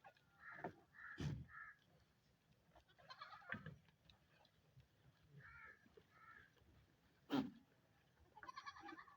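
Goats bleating briefly now and then, with a few sharp knocks between the calls.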